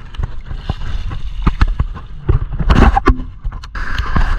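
Gusty wind buffeting an action camera's microphone as a low, uneven rumble, with irregular knocks and rubs from fingers handling the camera.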